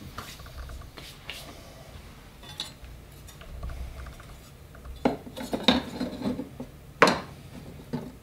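A thin diamond-plate metal sheet with cut-outs clinking and rattling as it is handled and fitted against the front of a plastic tool box. Light taps at first, a cluster of clatter about five seconds in, and one sharp knock about seven seconds in.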